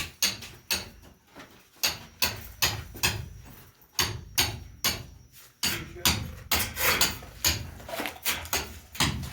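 Repeated hammer blows, sharp knocks coming unevenly at about two or three a second.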